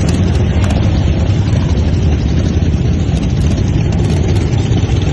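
Several large motorcycle engines running together with a steady low rumble.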